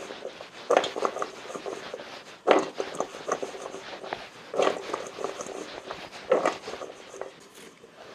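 Cut potato sticks being tossed in a stainless steel mixing bowl to coat them evenly with frying powder. Each toss lands with a sharp, slightly ringing knock, four times about two seconds apart, with a dry rustling in between.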